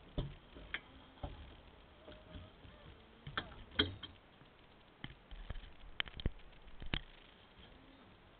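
Scattered light clicks and knocks inside a car cabin, about ten of them at irregular intervals, over a quiet background.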